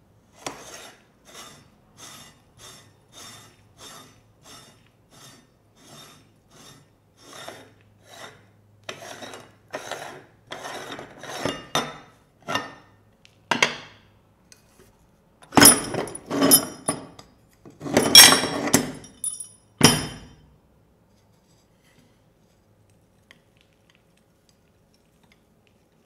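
A cast-metal hand-crank meat grinder being taken apart by hand. For about twelve seconds the threaded retaining ring is unscrewed in short, even scraping strokes, about one and a half a second. Then come louder metal clanks and clatters as the cutting plate and auger are pulled out and set down, the loudest a little past the middle.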